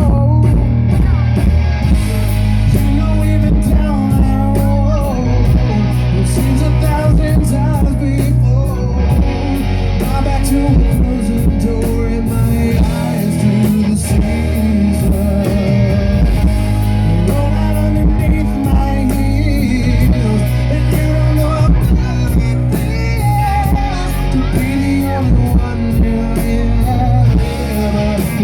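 Live rock band playing an instrumental passage of a rock ballad, with electric guitar over bass and drums.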